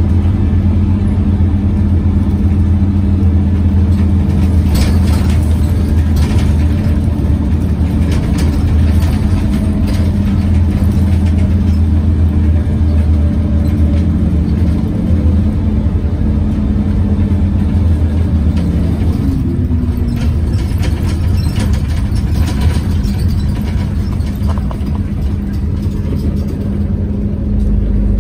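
Scania OmniCity city bus heard from inside the passenger cabin: the engine cooling fan running with a loud, steady hum that covers the engine sound, with scattered clicks and rattles over it.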